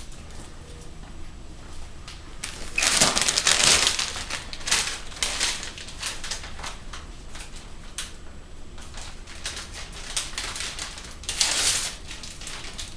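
Sterile instrument peel-pack wrapping crinkling and crackling as it is handled, in irregular spells, loudest about three seconds in and again near the end.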